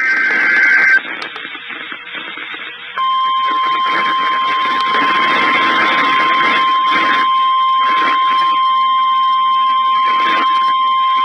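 NOAA Weather Radio alert signalling: a brief burst of paired SAME digital header tones, then a couple of seconds of radio hiss. About three seconds in, the steady 1050 Hz warning alarm tone comes on and holds over the hiss. This tone announces that an alert message follows.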